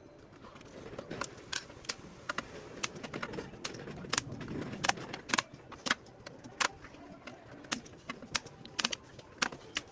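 Irregular sharp metallic clicks and clinks of tools and parts being handled while a UPS is taken apart to replace its batteries, over a low rustle of handling.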